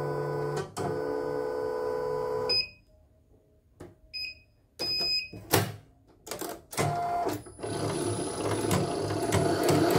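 A steady whine that cuts off about two and a half seconds in, then short electronic beeps as the touch buttons on a CNY portable embroidery machine's control panel are pressed. In the last couple of seconds the machine starts running with a rough rattling ('ngerotok'), the noise of the stiff, dirty mechanism it is being tested for.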